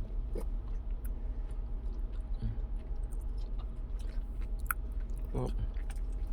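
A person chewing sushi, with small wet clicks and smacks, over a steady low hum.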